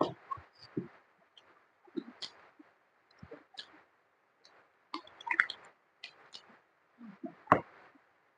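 Close-up mouth sounds of eating: irregular wet smacks, sucks and clicks of chewing small-boned spicy chicken feet, with the loudest click about seven and a half seconds in.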